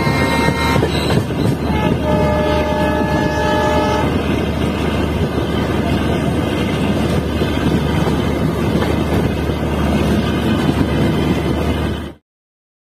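Indian Railways diesel locomotive horn sounding twice, with the second blast at a different pitch, heard from a coach of the same train. It sits over the steady running rumble of the train, which cuts off abruptly near the end.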